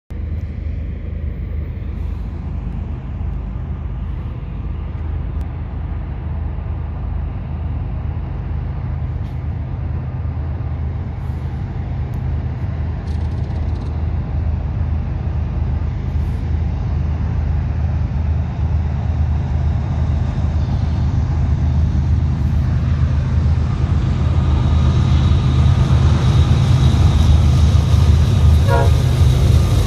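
Norfolk Southern diesel freight locomotives approaching, a steady low engine rumble that grows gradually louder as the train draws near.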